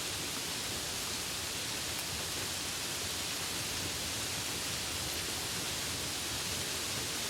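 Steady rainfall: an even, unbroken hiss of rain with no changes.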